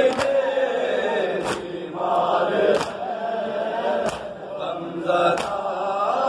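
Men chanting a noha, a Shia lament, together. Sharp claps of hands striking chests in matam land in time with the chant, about one every 1.3 seconds.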